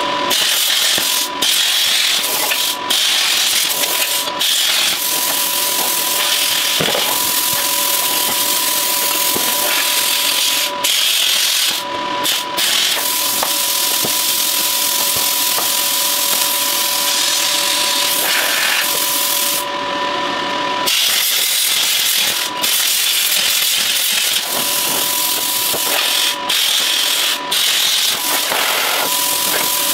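Corded angle grinder running with a steady whine while its disc grinds a metal wheel rim, a loud continuous hiss of abrasive on metal broken by a few short dips.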